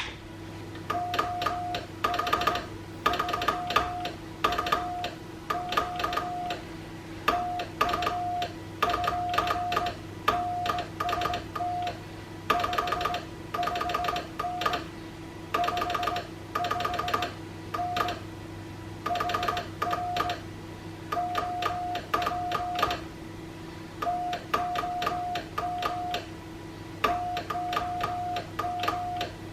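Morse code on a Paraset WW2 spy-radio replica during a CW contact: a single steady tone keyed on and off in dots and dashes, with a sharp click at each key stroke, over a steady low hum.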